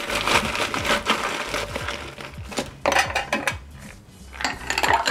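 Ice cubes scooped from an ice bucket and tipped into a cocktail shaker glass holding the mixed juices and rum, clattering against the scoop and the glass.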